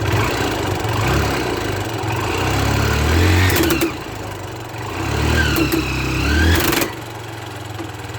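Motorcycle engine running with its chain drive exposed, revved up twice and dropping back, with clattering and squealing from the chain and front sprocket at each rev. The noise comes from the worn chain slipping over the front sprocket's worn-out teeth.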